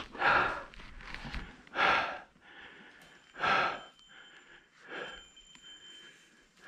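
A person breathing hard and out of breath: four heavy breaths about a second and a half apart, the last one weaker.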